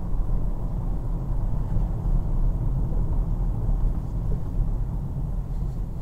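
A car driving, with a steady low rumble of road and engine noise.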